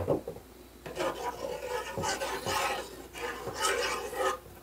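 A metal saucepan knocks down onto a gas stove's grate, then a metal spoon stirs thin polenta batter in it, scraping against the pan bottom in repeated strokes.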